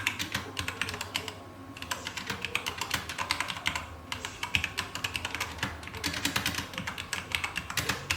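Typing on a Corsair K70 RGB MK.2 mechanical keyboard with Cherry MX Red switches: fast runs of key clicks in about four bursts, with short pauses between them.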